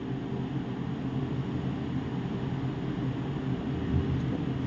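Steady low hum with a faint hiss, the room's background noise, and a soft low bump about four seconds in.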